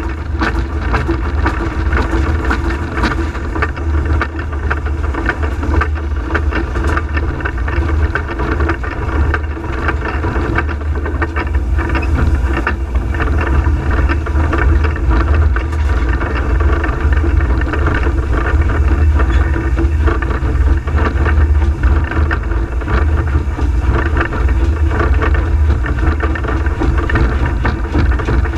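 Peckett steam locomotive Ashington No.5 heard from inside its cab while it runs under steam: a loud, steady mix of locomotive and running noise with a heavy low rumble.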